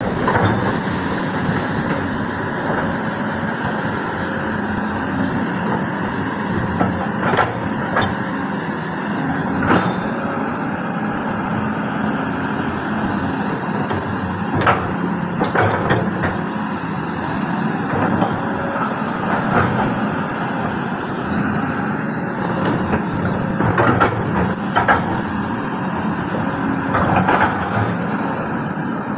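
Komatsu PC200-6 hydraulic excavator running steadily under load as its boom, arm and bucket work and the upper body swings, with a number of sharp metal clanks scattered through it.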